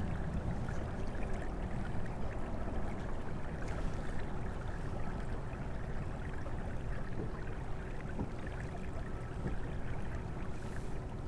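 Water swishing and trickling along the hull of a kayak moving slowly through calm water, a steady low rush with a few faint clicks.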